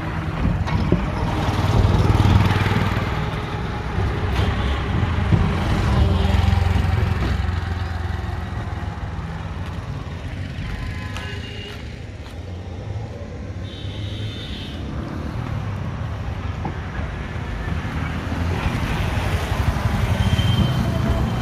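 Road traffic noise: motorcycle and small-vehicle engines running and tyres on the road, with vehicles passing close, a continuous low rumble that swells and eases. A few short high-pitched tones sound about halfway through.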